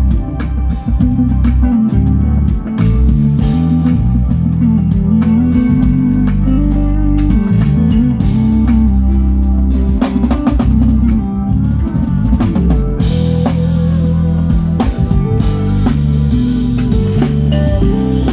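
Band music playing loud and steady: drum kit beat, a prominent bass line and guitar.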